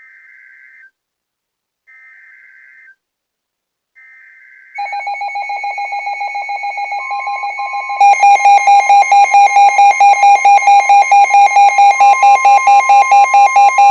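NOAA Weather Radio emergency alert: three short buzzy SAME data header bursts about a second apart, then Midland weather radio receivers' alert alarm, a loud rapid pulsing beep of about four pulses a second that grows louder about 8 s in, over the steady warning alarm tone. It signals a Special Marine Warning being issued.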